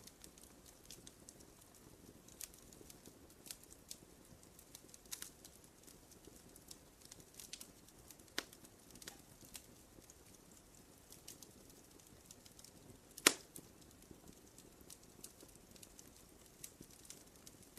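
Campfire crackling: scattered small pops over a low, steady rush of flame, with one loud, sharp pop about 13 seconds in.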